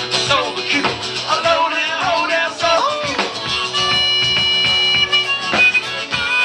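Live blues-funk music: an acoustic guitar strummed with a drum kit playing along.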